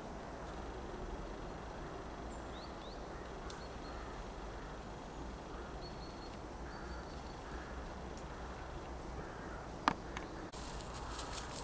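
Crows cawing at a distance, a few faint calls in the second half, over a steady outdoor hiss, with a few thin high bird chirps and one sharp click near the end.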